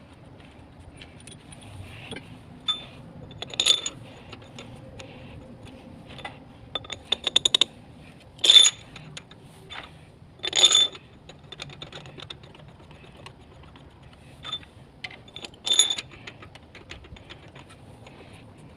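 Metal objects clinking and jangling: a handful of separate sharp, ringing metallic clinks, with a quick rattling run of them in the middle, over a faint low background.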